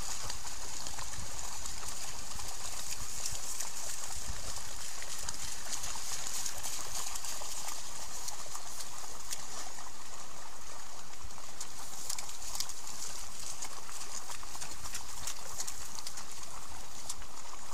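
Outdoor ambience of a flooded grassland pan: a steady high-pitched chirring hiss with birds calling, and wild dogs' feet splashing through shallow water in the first seconds.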